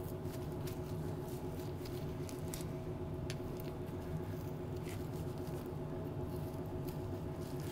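Faint wet squishing and small ticks of a knife cutting along the muscle of a raw beef tenderloin, pulling the head away from the main roast, over a steady low hum.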